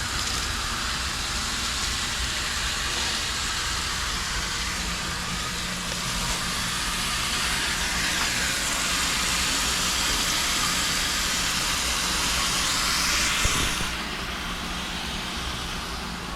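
Pressurized gas hissing steadily as it is blown through an air conditioner's refrigerant line set to clear debris out of the lines. The hiss thins and drops off about three-quarters of the way through.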